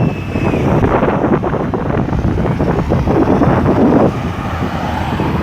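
Road traffic running through a busy roundabout, with wind buffeting the microphone.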